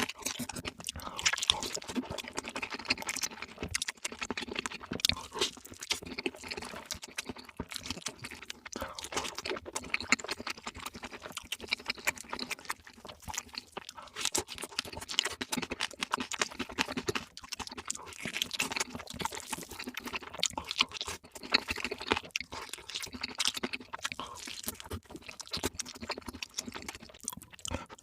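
A person chewing and crunching food close to the microphone, in a dense, rapid, unbroken stream of crisp clicks.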